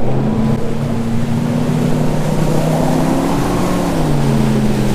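300 hp Mercury Racing outboard on a bass boat accelerating hard under full throttle. The engine note climbs for about three and a half seconds, then falls and steadies about four seconds in, over the rush of water and wind.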